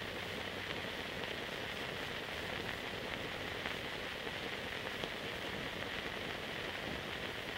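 Steady hiss with a couple of faint ticks and no speech or music: the background noise of a silent archival film transfer.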